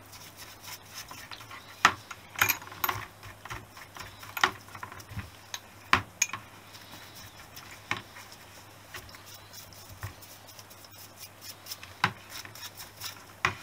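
Valve springs and small steel valve parts being washed in white spirit in a plastic paint kettle: irregular clicks and clinks of metal against metal and the bucket's plastic, with faint rubbing between them.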